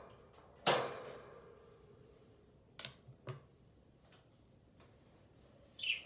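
A sharp knock with a short ring about a second in, then two light clicks around three seconds, from the budgie cage being handled and moved. Near the end a budgie gives one short chirp that falls in pitch.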